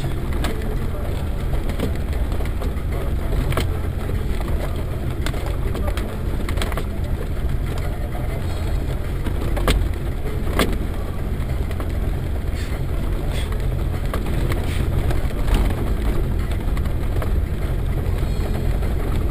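Land Rover Defender 110 driving across rough, grassy ground, heard from inside the cab: a steady low engine and drivetrain drone, with scattered sharp knocks and clicks from the body over the bumps.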